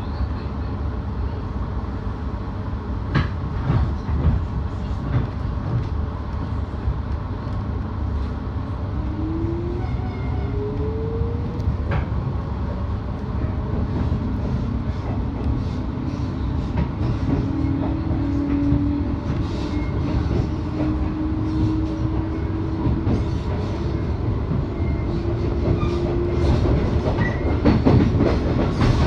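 JR 719 series electric train running on the rail with a heavy rumble and wheels clacking over rail joints. Partway through, a motor whine rises in pitch as the train picks up speed, and later a steady whine holds.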